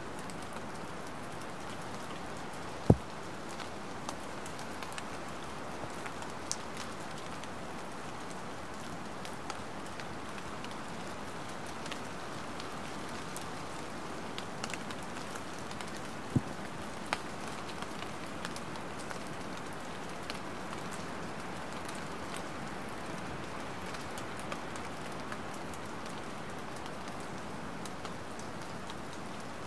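Steady light rain falling with a soft, even patter, dotted with small drop ticks. Two sharper, louder drops land about three seconds in and around sixteen seconds in.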